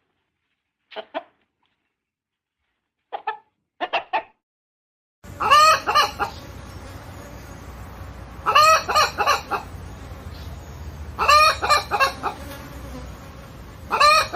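Hens clucking: short soft clucks in pairs during the first few seconds. From about five seconds in come louder, drawn-out calls over a background hiss, in bursts about every three seconds.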